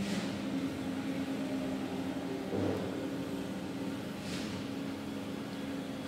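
Heavy truck engines running steadily at a concrete pour, a low drone from the ready-mix trucks and concrete pump. A brief thump comes about two and a half seconds in, and a short hiss about four seconds in.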